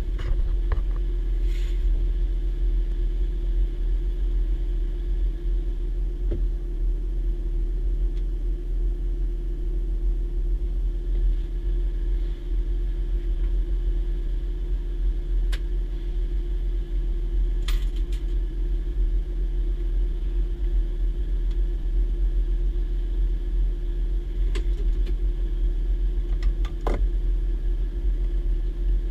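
Steady low rumble and hum of a DB Class 612 diesel multiple unit, heard from inside the passenger cabin, with a few short clicks or knocks in the second half.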